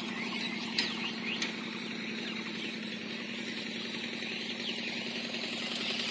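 An engine running steadily at an even pitch, with a few short high chirps in the first couple of seconds.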